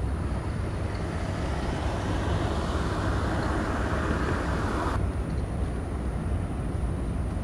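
Steady low rumble of passing patrol vessels under way, with a rush of water from their wash that swells and then cuts off suddenly about five seconds in.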